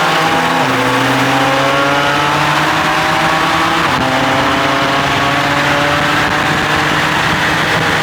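Car engine accelerating under load, its pitch climbing steadily and dropping sharply at gear upshifts about half a second in and again about four seconds in.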